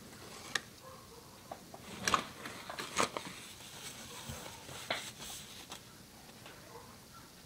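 A wooden craft stick stirring and scraping glue in a small plastic cup, with irregular light clicks and a few sharper taps and scrapes.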